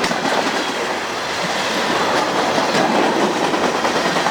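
Freight cars of a passing train rolling by at track speed: a steady noise of steel wheels on rail, with irregular clicks as the wheels cross rail joints.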